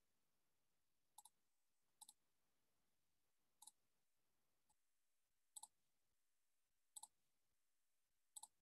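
Near silence with faint, short double clicks, six of them at uneven intervals of roughly one to two seconds.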